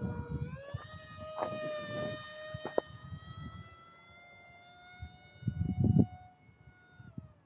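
Brushless electric motor (XING E Pro 2207) and 3-blade 5x4.5 propeller of an RC model plane whining in flight. The whine steps up in pitch about half a second in, creeps higher, then drops back sharply near the end. Wind buffets the microphone in low rumbles, loudest about six seconds in.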